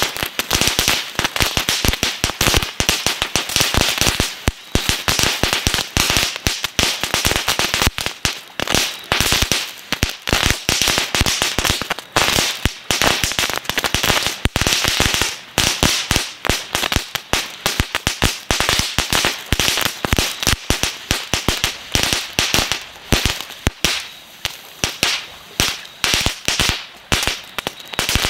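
Winda 'Noisy Boys' ground firework going off, a dense, irregular stream of sharp crackles and pops over a hiss of burning composition. The pops grow sparser near the end.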